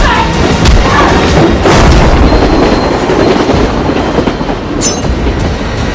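Film soundtrack of a moving train: a steady rumble and rattle of the carriage running on the rails, with two sharp hits, about two seconds in and again near the end.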